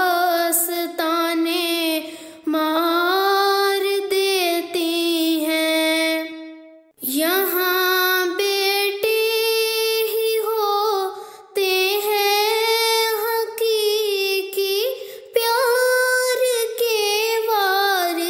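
A female voice singing an Urdu nazm in long drawn-out, held notes with slow glides in pitch. It breaks off briefly about seven seconds in, then carries on.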